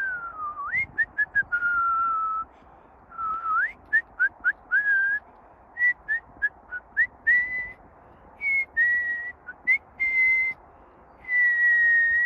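A person whistling a tune: a single clear whistled tone that glides between notes, with runs of quick short notes between longer held ones and brief pauses between phrases, ending on a long steady note.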